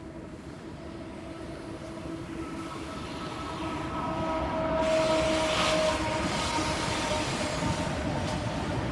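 A train passing, growing louder to a peak about halfway through and staying loud, with several steady ringing tones over the rumble.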